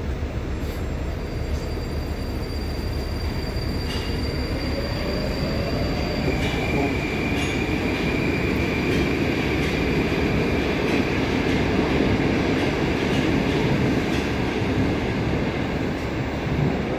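Moskva-2020 (81-775/776/777) metro train standing at a station platform: steady low hum and rush of its onboard equipment. A whine rises in pitch over the first several seconds, and a thin high tone sounds briefly in the middle.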